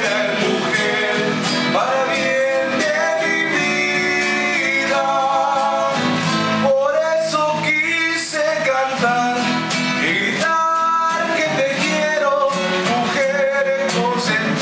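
Two acoustic guitars playing together, with voices singing a melody over them.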